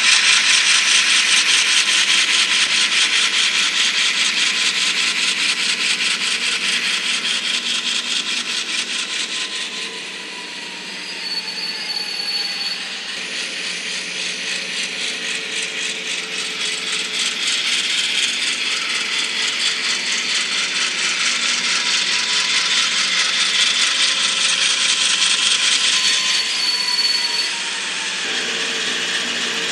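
N-scale model diesel locomotives running on the layout's track: a fast, continuous mechanical rattle of wheels and gears. It fades somewhat about a third of the way in and builds again. A faint motor whine drops in pitch twice as the locomotives slow.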